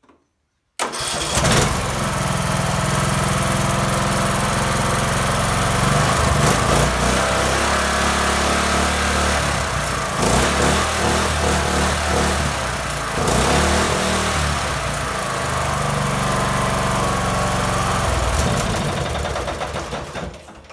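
John Deere L100 riding mower engine, its governor removed, running with its carburetor throttle worked by hand. It comes in abruptly about a second in, rises and falls in speed several times, and dies away near the end.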